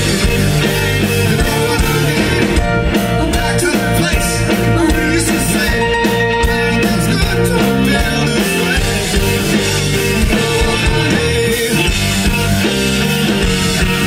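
Live rock band playing through the stage PA during a sound check: keyboard, drum kit and electric bass and guitar, loud and steady throughout.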